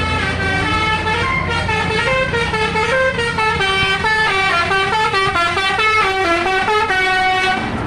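Tour bus's 'telolet' musical air horn playing a tune of quick stepped notes, stopping just before the end, over the low hum of the bus.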